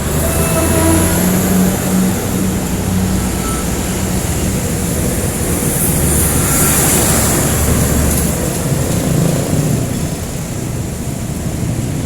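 A train passing close by, its engine and wheels rumbling steadily with the tail of its horn just at the start; the rumble eases somewhat near the end.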